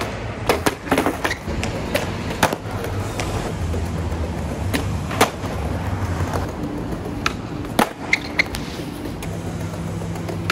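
Skateboards rolling over concrete paving with a steady low rumble, broken again and again by sharp clacks of boards popping and landing.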